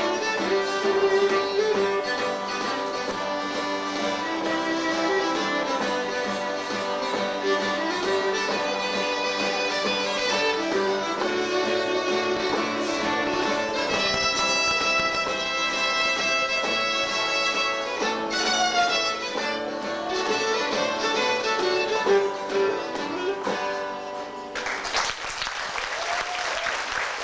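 Cajun fiddle and guitar playing a lively tune. The tune stops about three seconds before the end and applause breaks out.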